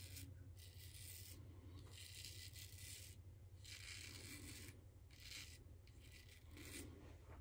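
Brass double-edge safety razor scraping through lathered stubble on the neck: a faint rasp in about six short strokes of half a second to a second each, over a low steady hum.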